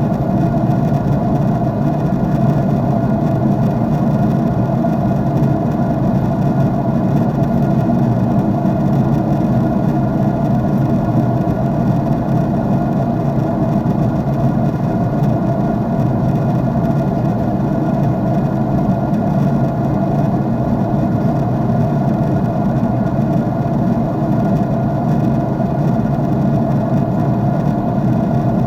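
Steady drone of an airliner's jet engines and airflow heard from a window seat in the cabin, an even, unchanging rush strongest in the low and middle range.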